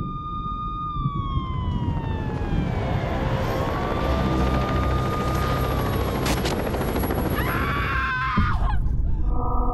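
Steady low helicopter rumble with emergency sirens wailing over it, their pitch sliding slowly down and up, and a faster warbling siren near the end.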